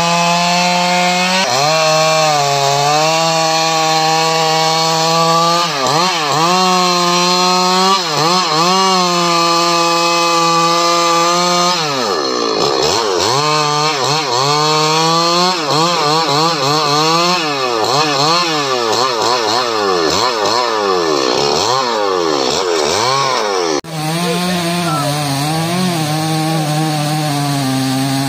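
Stihl MS 881 two-stroke chainsaw cutting through a teak log at high revs, dipping briefly and picking up again. About halfway it revs up and down rapidly many times over. Near the end it drops abruptly to a lower, steadier engine note.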